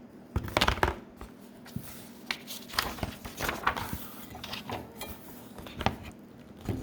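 Soft paper rustles and scattered light clicks and knocks from a picture book being handled and a page turned.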